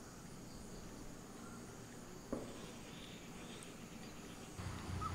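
Faint outdoor ambience with insects chirping, a single sharp click a little over two seconds in, and a low rumble that starts near the end.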